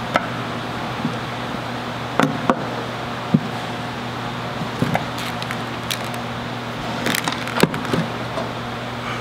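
Scattered light clicks and knocks of small metal parts and a screwdriver being handled and set down on a wooden workbench, with two sharper knocks about three and a half and seven and a half seconds in, over a steady low hum.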